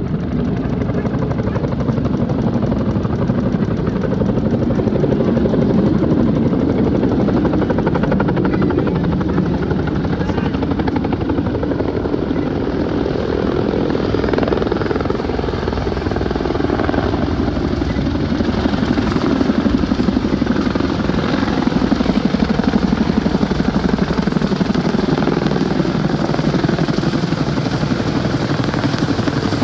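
Helicopter flying overhead, its rotor blades beating in a fast, steady chop over the engine noise, swelling louder twice as it passes.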